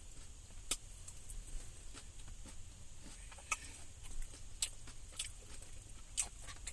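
Close-up chewing of a mouthful of chili-cheese tater tots, with scattered soft mouth clicks and smacks about once every second or so, over a faint low hum.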